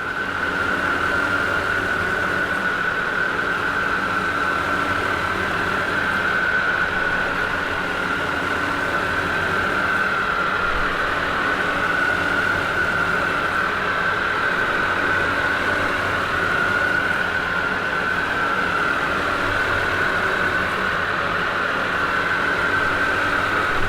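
Helicopter hovering: a steady high turbine whine over a low engine and rotor drone.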